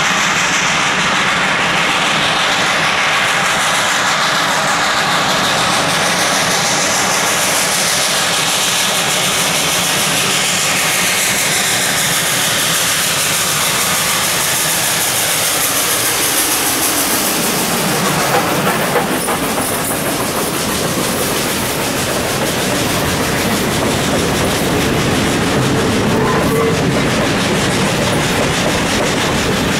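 Baldwin 2-8-0 Consolidation steam locomotive No. 734 working hard as it approaches and passes, its sound dropping in pitch a little over halfway through. Then a string of freight hopper cars rolls by, wheels clicking over the rail joints.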